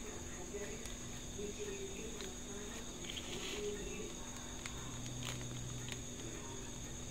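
A few faint clicks and a short crinkle of plastic as fine watchmaker's tools work on a Swatch chronograph's hands through a plastic sheet, over a steady high-pitched whine and a low hum.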